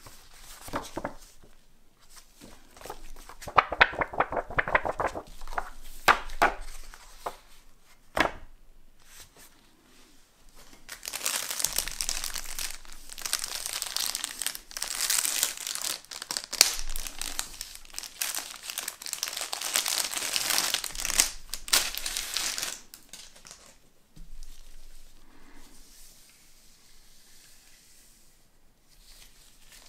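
Clear plastic bag crinkling as it is handled and opened to pull out a strip, loudest and most continuous for about ten seconds in the middle. Before that come scattered clicks and rustles of packaging being handled, and near the end the handling quiets down.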